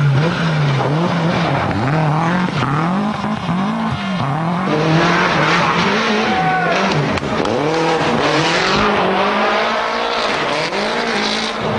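Toyota Celica GT-Four ST165's turbocharged 2.0-litre four-cylinder engine under hard driving, its revs rising and falling again and again through throttle lifts and gear changes. From about five seconds in a loud rushing noise joins it. The sound cuts off suddenly at the end.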